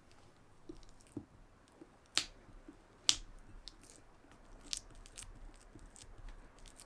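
Kitchen utensils and baking ingredients being handled: scattered light taps and knocks, with two loud, sharp clicks about two and three seconds in.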